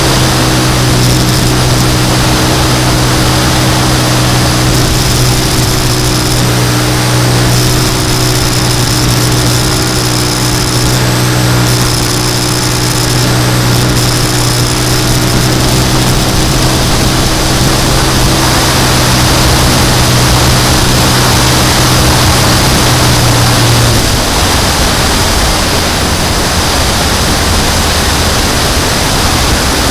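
Model airplane's nose-mounted propeller engine running at a steady pitch, heard from a camera on the wing with heavy wind rush over the airframe. About six seconds before the end the engine note stops, leaving only the wind rush as the plane comes in low to land.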